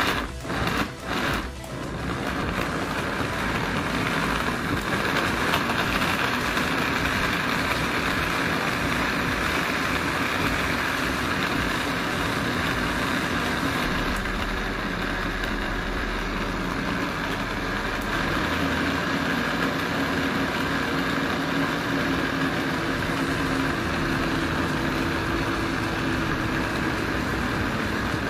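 Noon East BL9702H-CB 500 W blender blending a thick green puree in its jar. It pulses on and off a couple of times, then runs continuously, with a slight change in its sound about halfway through.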